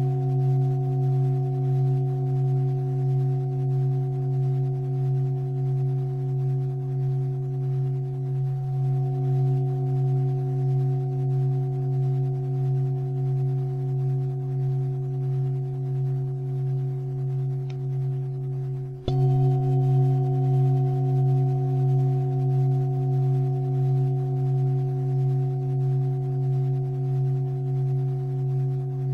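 A sustained, steady musical drone with evenly spaced overtones and a slow pulsing waver, like a held singing-bowl or synthesizer tone; it breaks off briefly and starts again about two-thirds of the way through.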